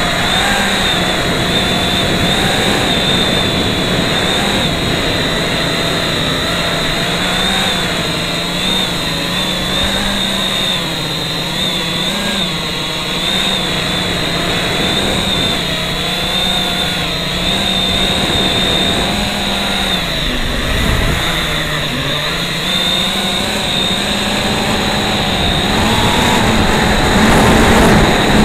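FPV quadcopter's brushless motors and propellers whining, heard through the onboard action camera's microphone. The pitch wavers up and down with the throttle, drops briefly about twenty seconds in, and the sound gets louder near the end.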